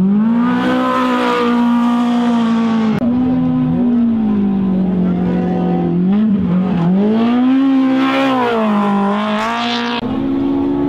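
Off-road race UTV engines revving hard, the pitch climbing and dropping as they accelerate and lift off. There are abrupt jumps in the engine note about three seconds in and near the end.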